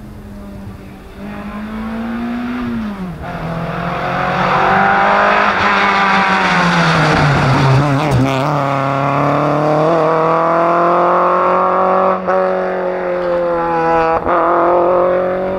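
Renault Clio rally car engine revving hard at full throttle. The pitch drops as the car passes close by about eight seconds in, then it climbs again, with two quick gear changes near the end.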